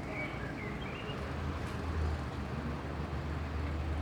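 Low, steady rumble of a train at the station, growing a little stronger about a second in, with a few faint high chirps near the start.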